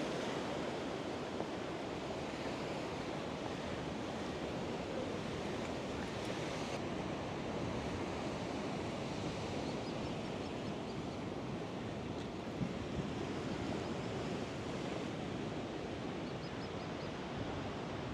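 Choppy sea surf breaking and washing on the shore: a steady rush of noise.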